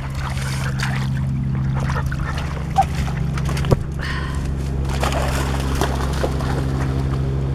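Shallow river water splashing and sloshing as a dog runs through it after a thrown rock, over a steady low hum.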